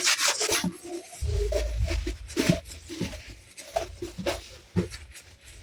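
A kitchen towel rubs briefly on a plastic container, then the container and its lid are handled with scattered light knocks and taps over a low rumble.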